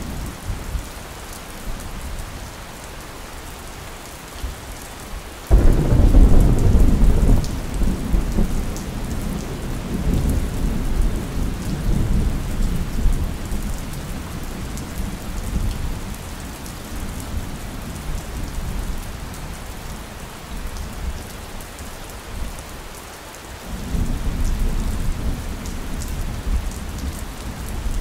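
Steady rain with a sudden clap of thunder about five seconds in that rumbles on for several seconds and fades. A second, softer roll of thunder starts near the end.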